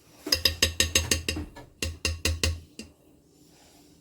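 Mixer beaters tapped rapidly against the rim of a mixing bowl to shake off dripping batter: two quick runs of ringing knocks, about eight a second, with one last knock after them.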